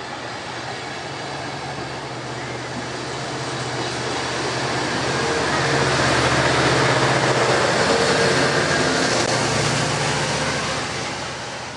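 Amtrak Surfliner passenger train departing: the cars roll past with a steady rumble, and the F59PHI diesel locomotive's engine hum swells to its loudest about halfway through as it passes, then fades near the end.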